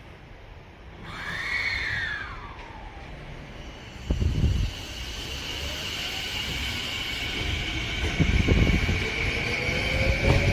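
Electric train moving along the platform track, with low thuds of wheels over rail joints and a steady high whine. A motor tone rises slowly in pitch near the end as it gets louder.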